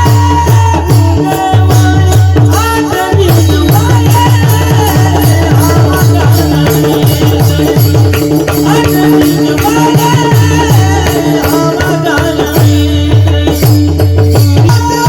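Marathi devotional bhajan music: a melody over a steady held drone, with regular drum strokes and rattling percussion keeping the rhythm.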